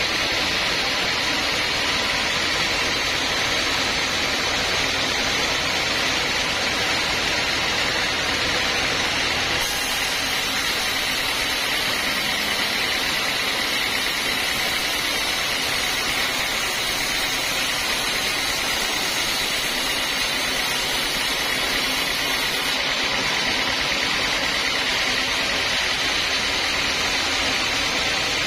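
Band sawmill blade cutting lengthwise through a teak beam: a steady, even sawing hiss with the machine running underneath. From about ten seconds in to about twenty-three seconds in, an extra, higher hiss joins it.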